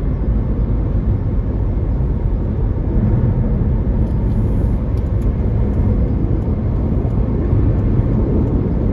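Road noise inside a moving car's cabin: a steady low rumble from tyres and engine while driving.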